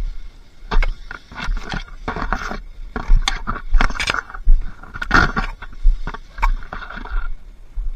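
Irregular rustling and scraping with dull low thumps about once a second.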